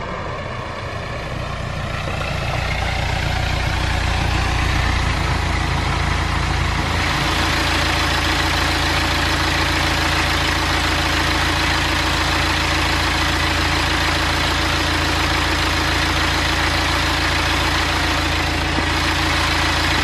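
BMW N47 four-cylinder diesel engine idling steadily on its first run after a timing chain replacement. Its level rises over the first few seconds, then holds steady.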